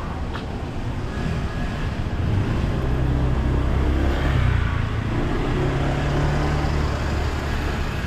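Small flatbed truck's engine running as the truck drives slowly past close by: a steady low hum that grows louder about two seconds in and fades near the end, over general street noise.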